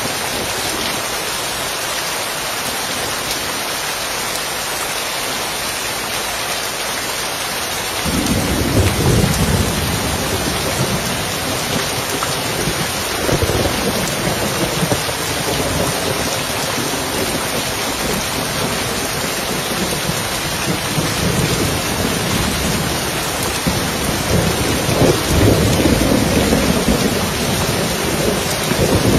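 Steady rain on a roof with thunder. A low rumble of thunder comes in suddenly about a quarter of the way through and rolls on, swelling several times.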